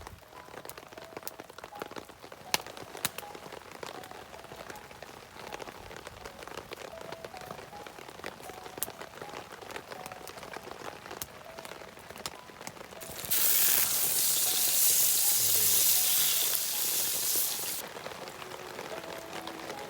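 Rain falling steadily, with a campfire crackling: sharp pops and snaps scattered throughout. About thirteen seconds in, a loud hiss starts suddenly, lasts some four or five seconds and cuts off.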